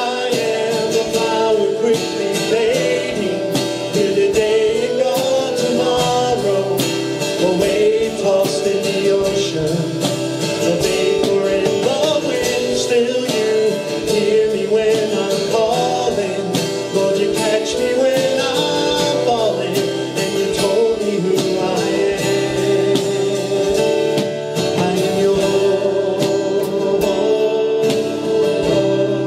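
Live worship band playing a slow contemporary worship song: a male lead voice sings over acoustic guitar, a drum kit and a saxophone.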